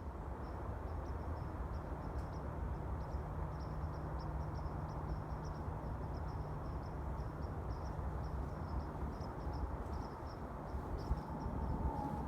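Steady distant rumble of a jet airliner, with a faint, rapid high chirping running through it.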